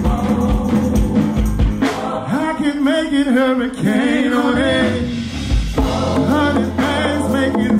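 A live band playing with a singer over a steady bass and kick-drum pulse. The bass and drums drop out for a few seconds in the middle, leaving the voice over the higher instruments, then come back in.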